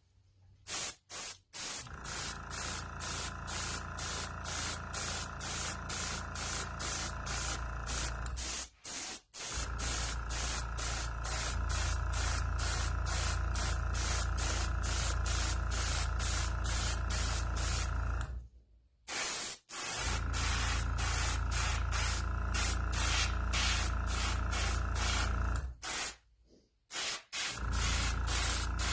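Airbrush spraying Alclad II chrome paint: a hiss that pulses about three or four times a second over a steady low hum, stopping briefly three times.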